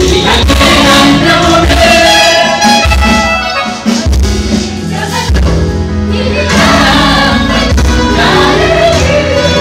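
Large mixed choir of women and men singing a gospel song over amplified accompaniment with a strong bass. The music thins out briefly about four seconds in.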